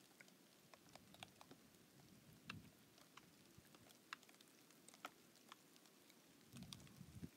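Thawing lake ice crackling as it shifts, pushed up and down by a slight breeze: faint, scattered sharp clicks and ticks, with a duller low knock about two and a half seconds in and a short run of low knocks near the end.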